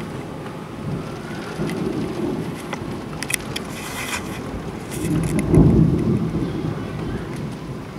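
Thunder rolling and rumbling through steady rain, swelling loudest about five and a half seconds in, with raindrops ticking against the window glass.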